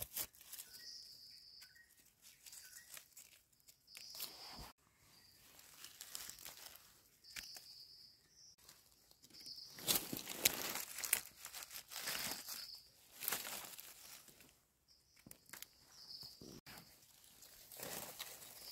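Dry leaf litter and twigs rustling and crackling in irregular bursts as the forest floor is searched for termite mushrooms, loudest about halfway through. Short high chirps sound now and then.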